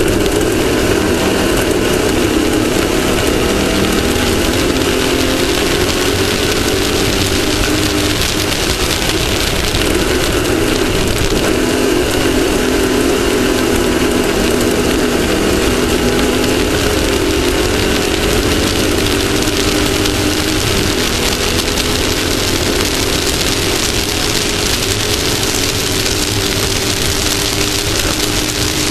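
Off-road race vehicle's engine running hard at speed, its pitch rising and falling with throttle and gear changes, over a steady rushing noise.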